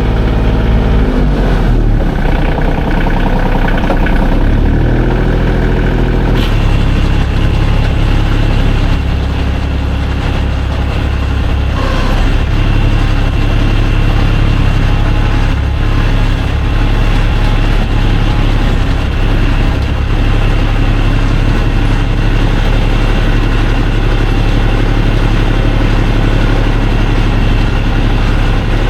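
A vehicle engine running. Its pitch shifts over the first few seconds, then holds steady, with a brief click about six seconds in.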